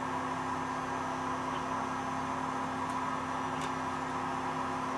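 Steady background hum with a low, even tone and a soft hiss, with a couple of very faint ticks near the middle.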